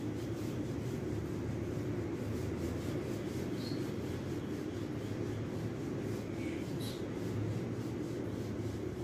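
A whiteboard duster rubbing back and forth across a whiteboard, wiping off marker writing in a continuous scrubbing sound.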